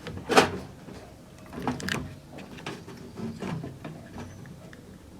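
Light clicks and knocks of handling, the sharpest about half a second in, as multimeter test leads are set against a microwave oven capacitor's terminals on the continuity setting. No continuity beep sounds.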